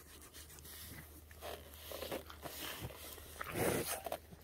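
A bull breathing and sniffing right at the microphone: a few short puffs of breath, the strongest about three and a half seconds in.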